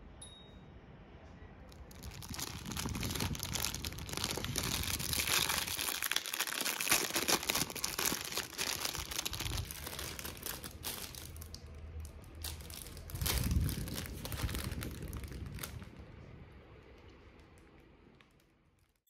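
A thin plastic bag crinkling and rustling as a snack is pulled out of it and handled, a dense crackle lasting about fourteen seconds before it dies away. A single wind-chime ring is heard right at the start.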